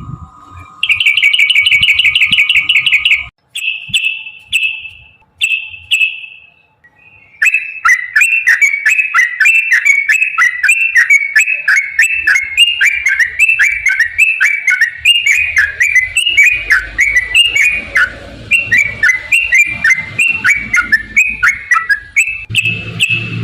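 Yellow-vented bulbul (trucukan) song: a fast high trill, then three short falling phrases, then a long, rapid run of repeated falling chirps lasting about fifteen seconds.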